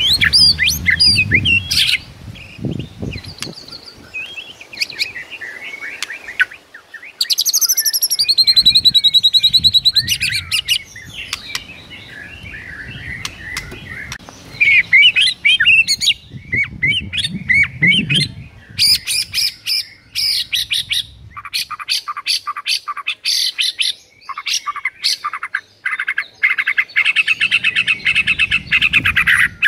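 White-rumped shama singing a long, varied song of whistles and fast trills. A loud buzzy note comes about a third of the way in, and a rapid rattling trill runs through the last few seconds.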